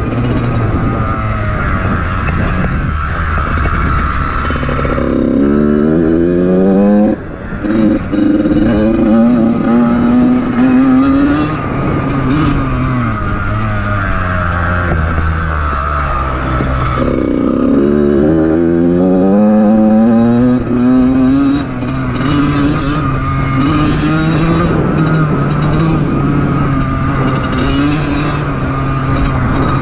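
Yamaha YZ85 two-stroke dirt bike engine running under the rider, twice climbing in pitch as it accelerates hard, with a brief dip in sound after each climb as the throttle comes off.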